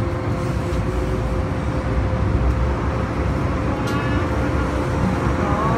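Hong Kong MTR M-Train running as it pulls away from the platform into the tunnel: a steady low rumble from the wheels and running gear, with a constant hum underneath.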